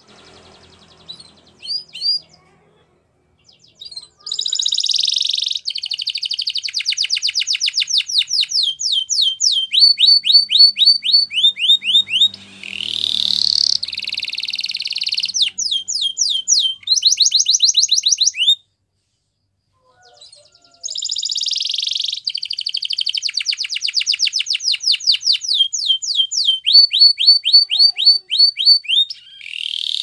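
Domestic canary singing: two long song phrases of rapid trills and repeated sweeping notes, separated by a pause of about two seconds, with a few short chirps at the start.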